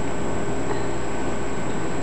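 Steady, even background noise with a faint high whine and no distinct events.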